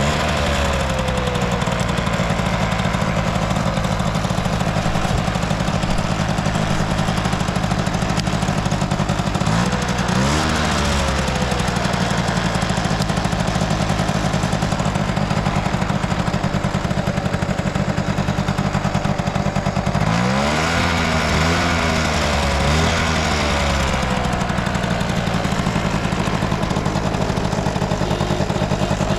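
Honda Motocompo AB12's small two-stroke single-cylinder engine idling, with a throttle blip about ten seconds in and a quick series of three blips around twenty seconds in, each revving up and falling back to idle. It revs up smoothly with no abnormal noise.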